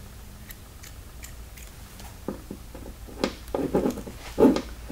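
Light ticks, then several louder taps and knocks, as a spring-loaded automatic center punch is set against the sheet-metal firewall and pressed in to make a punch mark.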